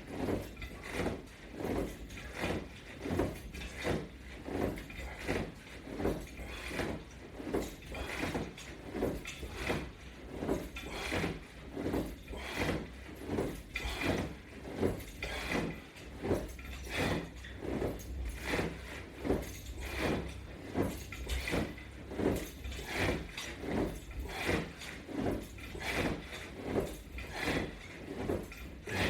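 Crunch repetitions against resistance straps anchored to a Latch Bar: a regular swishing pulse with each rep, a little more than one a second.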